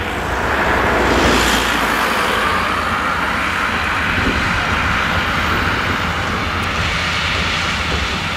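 New Holland CX combine harvester running under load while its eight-row Geringhoff corn header takes in maize: a steady mechanical drone with a rushing hiss, growing louder over the first second or so and then holding steady.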